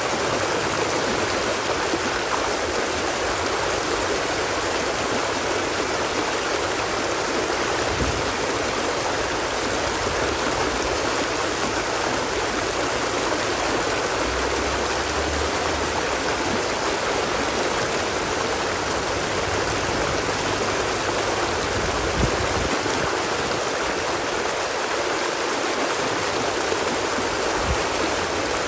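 A stream flowing steadily, an even rushing of water with a few brief low rumbles here and there.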